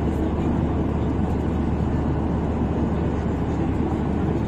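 Steady low rumble inside an airliner's passenger cabin: jet engine and airflow noise, even and unchanging.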